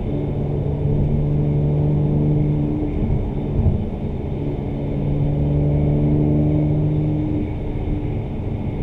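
2017 Mercedes-AMG C43's twin-turbo V6 and performance exhaust, heard from inside the cabin, running at a steady engine speed with an even drone. About three and a half seconds in, the tone breaks up briefly with a short loud peak, then the steady drone picks up again.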